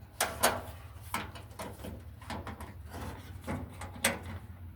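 Clicks and knocks of hand tools and metal parts being handled while taking a tractor's battery cable off, a string of sharp strikes with the loudest about four seconds in.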